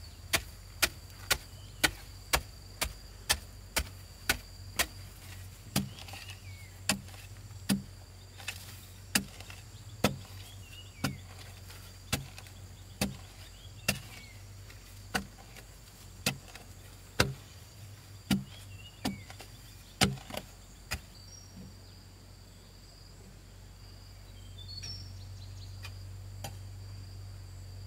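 Soil being tamped down by hand with a wooden pole: a run of sharp knocks, about two a second at first, then about one a second, stopping about 21 seconds in. A steady low hum runs underneath, with a few faint chirps near the end.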